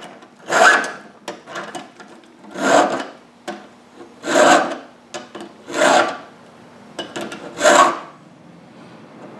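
Round chainsaw file in a Stihl filing guide pushed across a saw chain's cutters in five filing strokes, one every one and a half to two seconds. The guide takes metal off the depth gauge along with the cutter.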